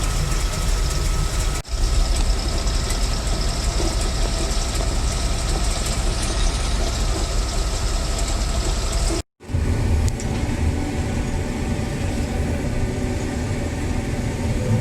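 Farm vehicle engine running steadily, heard from the vehicle. The sound dips briefly about a second and a half in and cuts out completely for a moment about two-thirds through.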